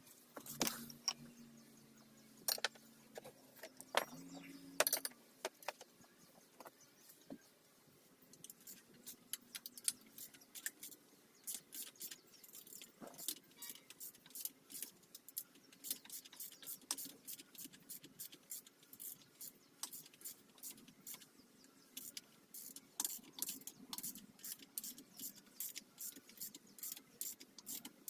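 Light metallic clicks and clinks from hand tools and parts being worked on a dirt bike, coming in quick irregular runs from about ten seconds in. A faint low hum runs under the first few seconds and then stops.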